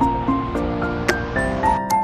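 Background music: a melody of sustained notes stepping upward over a low steady accompaniment.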